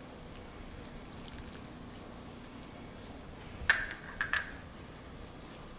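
Faint room tone broken a little past halfway by a few light clinks of a hard object, one sharper clink followed by two smaller ones about half a second later.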